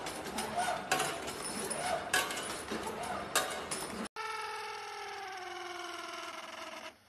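Sharp clicks and clatter, then after a sudden cut a grinding wheel runs with a steady whine that sinks slowly in pitch while a bamboo tube is held against it.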